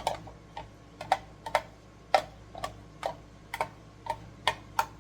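A metal spoon knocking and scraping against a can while the soup is emptied out: about a dozen sharp, irregular clicks.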